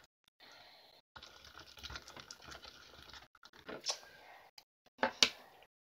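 Sticky homemade glue slime being squished and pulled apart by hand, with irregular wet crackles and clicks and a couple of louder snaps about four and five seconds in.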